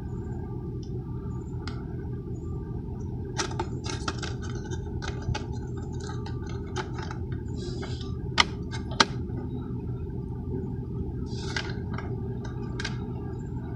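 Plastic clicks and clacks of a Traxxas 4-Tec RC car being handled as its plastic body shell is fitted back onto the chassis and pinned with body clips, with two sharp loud snaps about eight and nine seconds in. A steady low rumble of background noise runs underneath.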